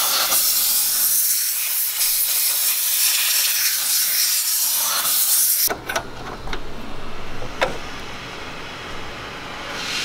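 A loud, steady hiss for about six seconds that cuts off suddenly, followed by a few faint clicks.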